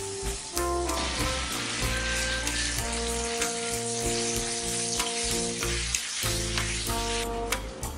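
Caramel mixture sizzling and bubbling hard in a nonstick frying pan just after milk has been poured in, while a spatula stirs it. The sizzle eases a little near the end.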